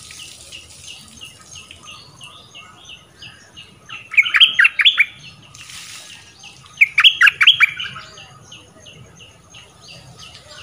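A caged bulbul, a decoy bird, sings two loud, quick warbling phrases, one about four seconds in and another about seven seconds in. Under them, a faint short chirp repeats about three times a second.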